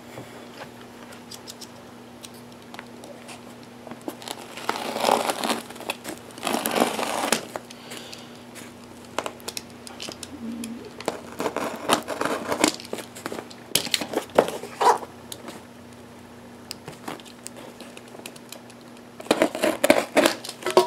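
Cardboard shipping box being handled and opened: packing tape and cardboard crinkling and tearing in several separate bursts. A faint steady low hum sits underneath.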